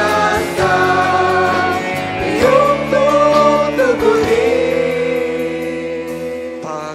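Live Christian worship song: singers holding long sung notes over a band, slowly growing quieter over the second half.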